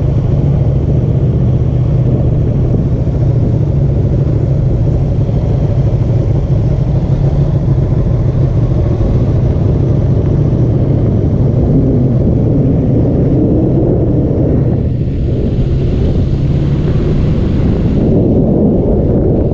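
Sport motorcycle engine running at a steady cruise, heard on board the bike as a loud, steady low drone with road noise; it eases off briefly about fifteen seconds in and then picks up again.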